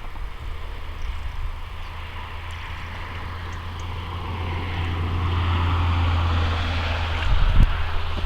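A passing engine swells to a peak about six seconds in, its pitch slowly dropping, over a steady low wind rumble on the microphone.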